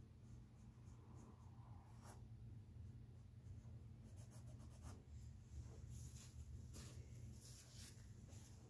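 Faint scratching of a small paintbrush on canvas as paint is dabbed on in short strokes, over a low steady hum.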